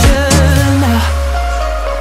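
Background electronic pop music. The beat drops out about half a second in, leaving a long, slowly sinking bass note.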